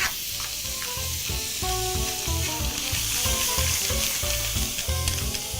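Clams, mussels and prawns sizzling in a pan of hot oil with freshly added garlic, with background music and a steady low beat underneath.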